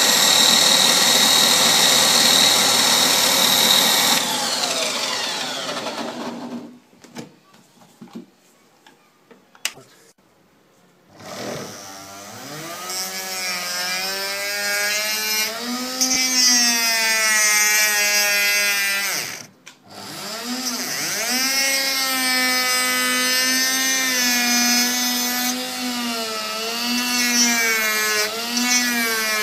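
A small electric motor running with a whine, winding down and stopping about seven seconds in. It starts up again a few seconds later and speeds up and slows down repeatedly, cutting out briefly once more.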